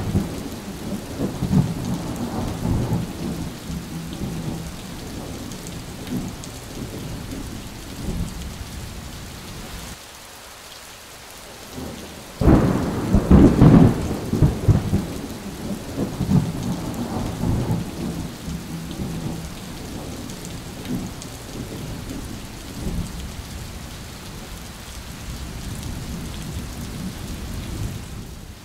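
Rain pouring steadily with thunder. A rumble dies away over the first few seconds. About twelve seconds in a sudden loud clap of thunder comes and rolls on for several seconds before fading.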